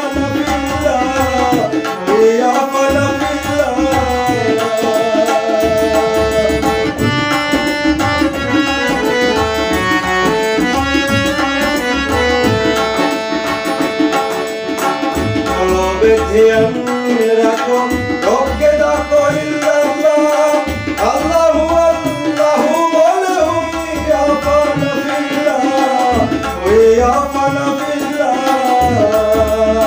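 Tabla drums and a harmonium playing a devotional folk song. The harmonium holds steady chords, and a man's singing voice comes in and out over the drumming, with a stretch of held instrumental notes in the middle.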